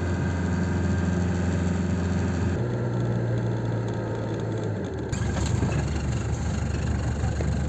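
Camper van engine running while driving, heard from inside the cab as a steady low hum with road noise. The hum changes abruptly twice, about two and a half and five seconds in.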